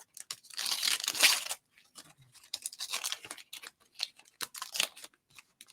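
A trading-card pack wrapper torn open in one loud rip about half a second in, followed by several shorter crinkles of the wrapper as the cards are worked out.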